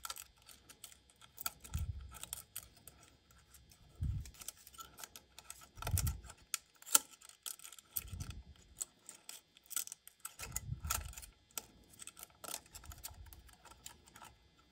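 Light metal clicks and ticks of a feeler gauge and hand tools at the intake valve adjuster of a Honda XR200 single-cylinder engine as the valve clearance is checked, with a few dull low thumps from handling the engine.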